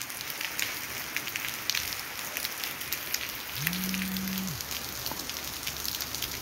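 Light rain falling steadily on a wet street and trees, with many small drop ticks close by. A brief low hum rises, holds and falls away about four seconds in.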